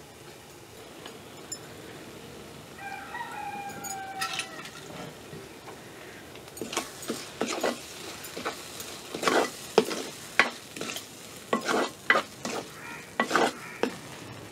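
A cooking utensil scraping and knocking in a pan as food is stirred over a frying sizzle, with about a dozen sharp strokes in the second half. A rooster crows once about three seconds in.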